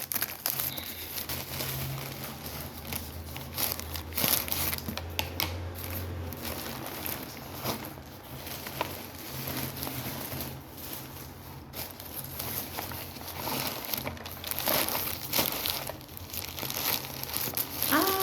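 Parcel packaging crinkling, rustling and tearing as it is handled and pulled open by hand, in an irregular run of crackly strokes. A faint low hum sits underneath.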